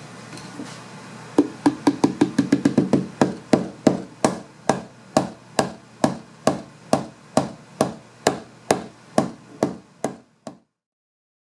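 Hammer tapping repeatedly on wood: quick blows of about five a second, then steadier ones of about two a second, stopping abruptly.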